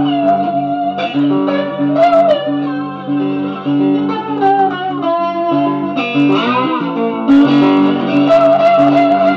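Electric guitar playing a lead line of bent, held notes with wide vibrato and a quick run, over a steady pulsing low accompaniment.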